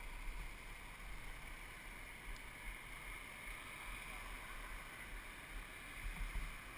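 Street traffic: cars driving past close by, a steady noise that swells slightly about six seconds in.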